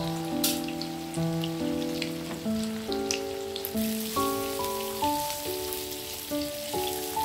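Background music, a melody of separate notes that each start sharply and fade, over a steady sizzle with fine crackles from food frying in oil.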